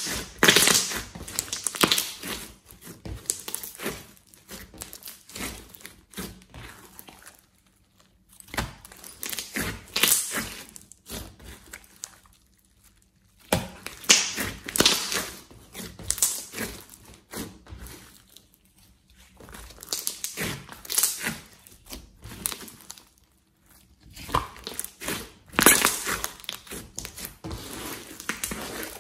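Hands squeezing, pressing and folding a large glossy slime mixed with clay, making dense sticky clicks and pops in bursts of a few seconds, with short pauses between handfuls.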